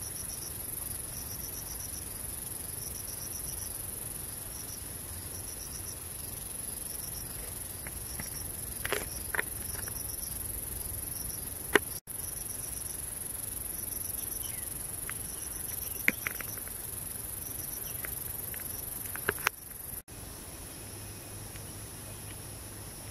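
Insects calling: a steady, high-pitched shrill with short trains of rapid chirps repeating about every second, and a few sharp clicks.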